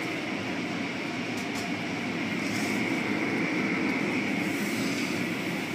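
Automatic car wash running: a rotating wash brush and water spray swishing against a pickup truck over the steady rumble and hum of the wash machinery.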